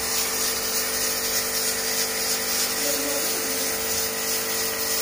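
A small motor's steady hum and whine over a high hiss, unchanging throughout.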